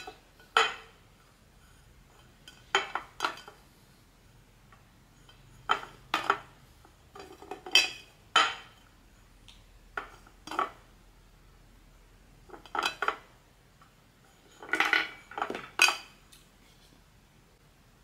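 Small hard plastic pieces clicking and clinking against each other and the table in short clusters, about eight times, a second or two apart.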